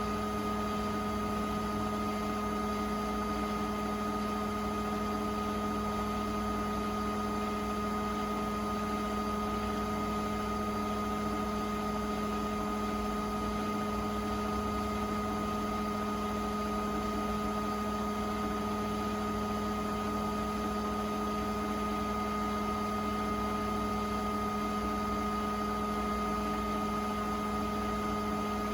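Beko WTK104121A washing machine running steadily late in its rinse-and-spin cycle: a constant hum with a steady whine above it, holding one pitch throughout.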